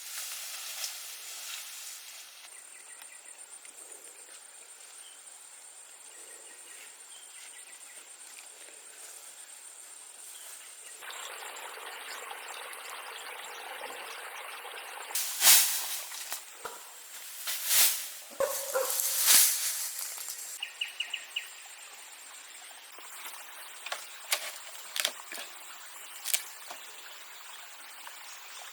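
Outdoor ambience with an insect's steady high-pitched buzz for several seconds, then a cluster of loud sudden noises about halfway through, followed by scattered light clicks.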